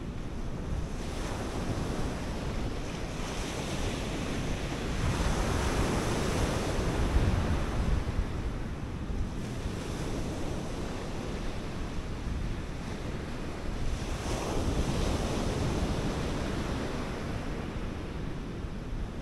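Sea surf breaking and washing up a sandy beach, swelling louder about five seconds in and again about fourteen seconds in. Wind buffets the microphone throughout with a low rumble.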